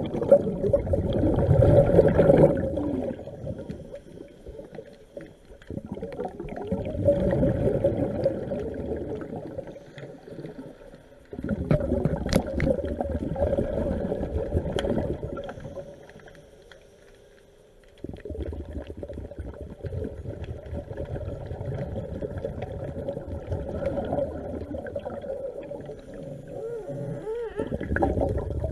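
A scuba diver's breathing heard underwater: rushes of exhaled bubbles from the regulator come every few seconds, with a short lull about sixteen seconds in before the bubbling resumes.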